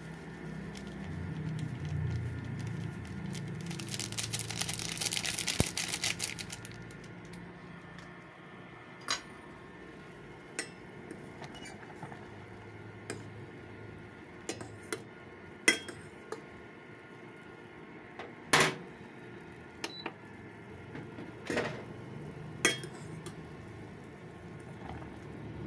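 A metal fork clinking against a stainless steel saucepan as instant noodles are stirred: a dozen sharp, separate taps, over a low steady hum from the induction cooker. About four seconds in there are two seconds of crackly rustling hiss.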